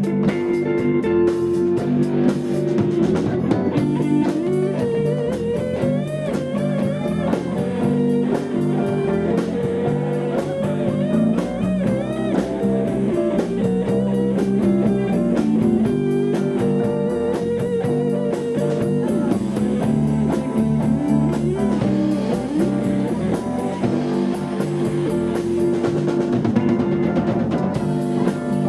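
Live blues band playing an instrumental passage: electric guitars over drum kit and bass, the lead line bending and wavering in pitch.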